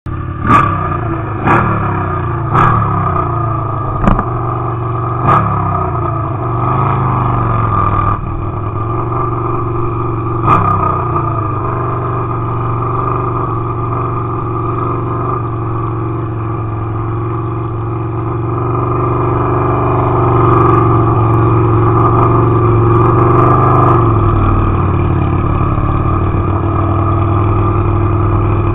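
Drag-racing motorcycle engine idling, blipped sharply with the throttle about six times in the first ten seconds, each rev falling quickly back to idle. It then holds a steady, slightly raised idle that drops back a little near the end.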